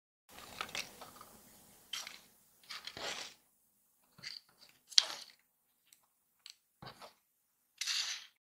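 Cut-out card pieces of a paper toy being handled and moved about: a series of short paper rustles and crinkles, with a sharp tap about five seconds in.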